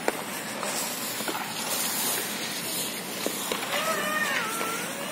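A few light clicks of plastic hockey sticks against the puck and ice over a steady hiss. In the last second or so, a young child calls out in a high, wavering voice.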